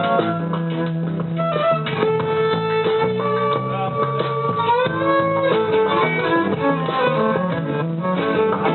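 Live ensemble music in rehearsal: plucked guitar playing with several held notes above it, going on without a break.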